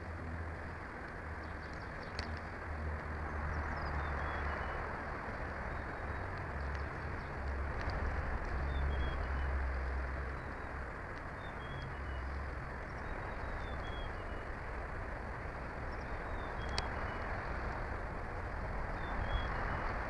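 Wind rushing and buffeting over an outdoor nest-cam microphone, with short, high, falling bird chirps every few seconds and a couple of sharp clicks.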